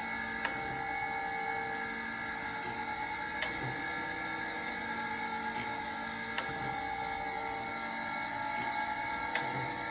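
Proth automatic surface grinder running, a steady hum and whine of several held tones, with a sharp click about every three seconds.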